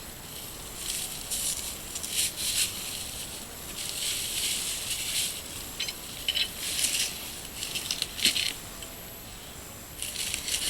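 Packaging crinkling and rustling in irregular bursts as a tool is unwrapped from its shipping box, with a few short sharp clicks.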